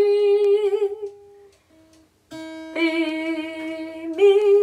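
Single string of an acoustic guitar plucked and left to ring while a woman sings the same note along with it. The first note fades about a second in. After a short pause a new note is plucked, and it steps up in pitch twice as the string is fretted higher.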